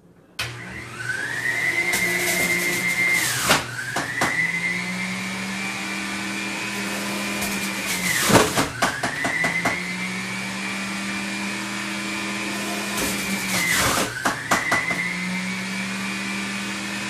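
Electric juicer motor starting up and running with a high whine. Three times the motor bogs down sharply and spins back up, with clicks and knocks, as tomatoes are pushed down the chute.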